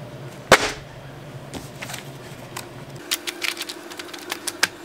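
A sharp thump about half a second in, then a fishing-tackle catalog's paper pages being flipped rapidly, a quick run of page flicks in the second half.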